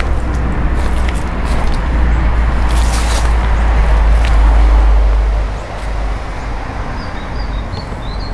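Wind buffeting the microphone: a low rumbling roar that eases about five and a half seconds in, with a few faint high chirps near the end.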